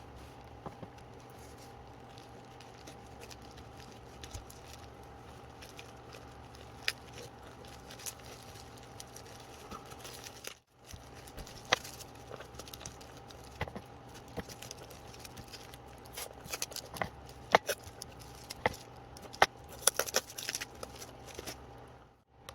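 Plastic parcel packaging being handled and opened: scattered crackles, rustles and light taps, getting busier after about sixteen seconds, over a steady faint electrical hum. The sound cuts out briefly about eleven seconds in.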